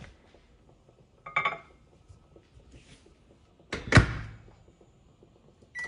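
A ceramic dish set down inside an LG over-the-range microwave with a short clatter, then just before four seconds in the microwave door is pushed shut with a loud thump. Near the end a single keypad beep sounds.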